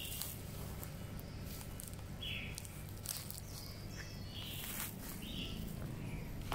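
A bird giving short chirps several times, one every second or two, over a steady low hum.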